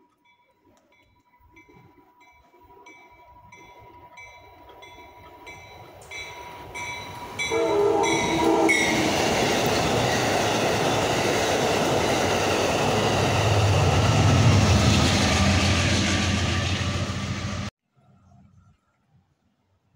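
Amtrak Downeaster passenger train with Amfleet coaches approaching and passing through the station, preceded by a faint regular ringing about twice a second. A horn blast sounds about 8 s in, then the loud rumble and rail noise of the cars going past, which cuts off abruptly near the end.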